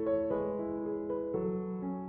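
Background music: piano notes with chords changing about every half second to second.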